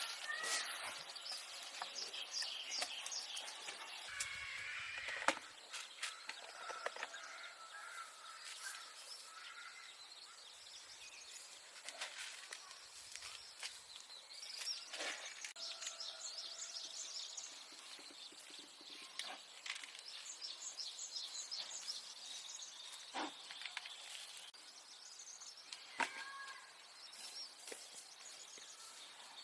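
Birds chirping and calling, with several short knocks or taps spread through.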